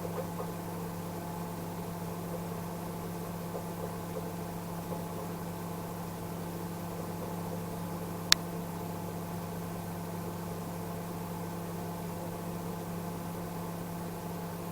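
Microwave oven running a two-minute test heat on a glass of water, a steady electrical hum throughout. A single sharp click about eight seconds in.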